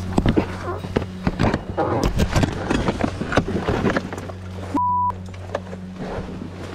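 Quad bike (ATV) lying on its side with its engine running as a steady low hum, over irregular knocking, scraping and rustling as the rider struggles underneath it. A short single-tone beep sounds about five seconds in.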